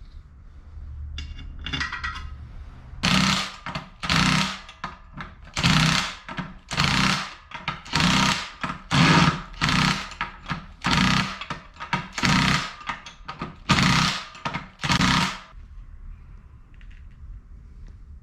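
A power tool run in about a dozen short, loud bursts of a second or less each, with some lighter clatter just before the first burst.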